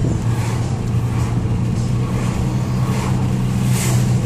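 Steady road and engine noise heard inside the cabin of a moving car, with a low, even hum underneath.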